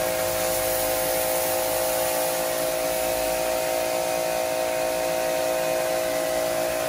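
Kawasaki HPIM 1800 induction-motor pressure washer running, a steady hum under the hiss of its water jet striking a concrete floor.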